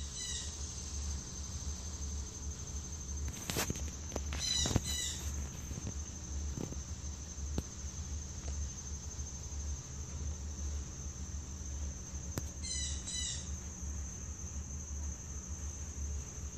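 Steady high insect trill, with brief clusters of chirping calls three times, over a low rumble.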